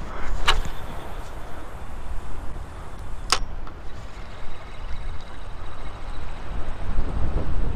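Wind rumbling on the microphone, with two sharp clicks about three seconds apart as a spinning rod is cast and a faint whir as the spinning reel is wound in.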